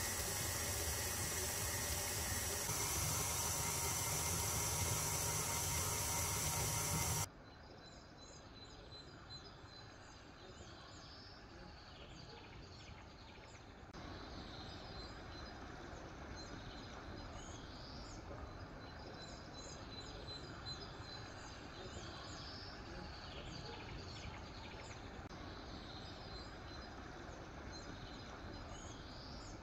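Stand mixer motor running steadily as it mixes bread dough, with a strong low hum; it stops suddenly about seven seconds in. After that, a much quieter background of repeated bird chirps over a faint hiss.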